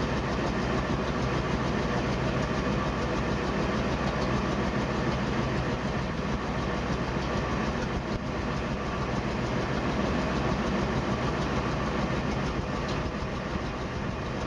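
Truck engine idling with a leaking exhaust, making a rapid, steady pulsing.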